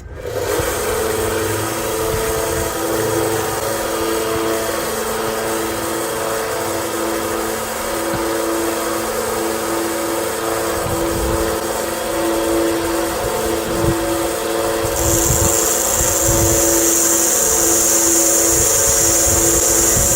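A power tool switches on suddenly and runs steadily, with a pulsing, wavering hum. About three-quarters of the way through, a loud high-pitched hiss joins in.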